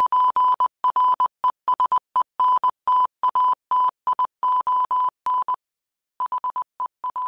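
An electronic beep tone keyed on and off in a run of short and long pulses, like Morse code or a telegraph, as a news-intro sound effect. There is a gap of about half a second a little after five seconds in, and then the pulses come shorter and quicker.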